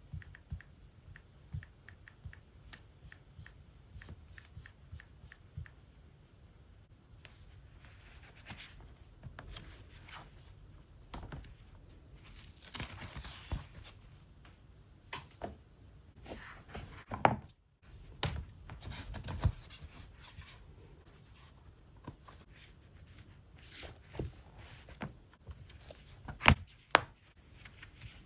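Hands handling packaging and a tablet: a run of light clicks and taps, a longer rustle of paper or plastic near the middle, and a few sharper knocks.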